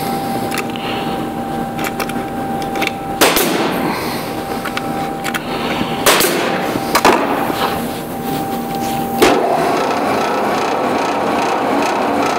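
A power sander running steadily with a faint hum, broken by four sharp wooden knocks. About nine seconds in, the hum drops out and the noise turns rougher and denser.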